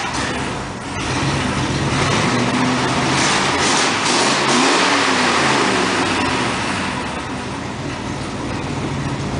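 1965 Mercury pickup's 352 V8 revved up about a second in, held at higher revs for several seconds, then let back down toward idle near the end. It is being run up to clear it while it is running a little choked up.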